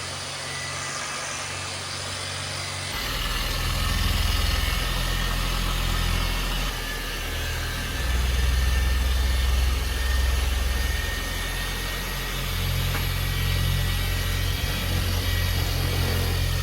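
An engine running with a steady low rumble, which gets louder about three seconds in and then swells and eases a few times.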